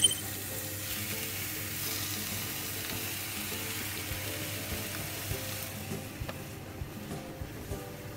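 Whole bigeye fish and ginger slices sizzling in hot oil in a frying pan, with a sharp loud hiss right at the start as the fish meets the oil. The sizzle turns weaker and duller about six seconds in, once a glass lid covers the pan.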